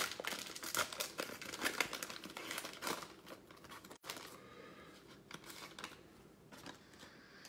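Shiny plastic wrapper of a Panini Contenders Fat Pack of football cards being torn open and crinkled, crackling densely for about four seconds, then fainter rustling as the pack and cards are handled.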